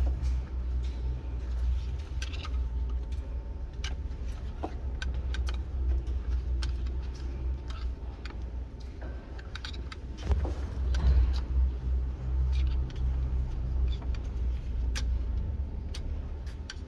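Low, steady engine-like rumble with a slight pulse, with scattered light metallic clinks and clicks over it.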